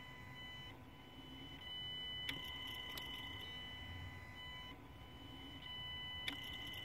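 Ford Kuga Mk2 180PS engine running quietly at low revs, with steady high-pitched tones over a low rumble and a sharp click or rattle about every four seconds.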